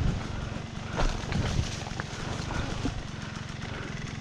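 Two-stroke dirt bike engine idling, with a few knocks and scuffs about a second and a second and a half in.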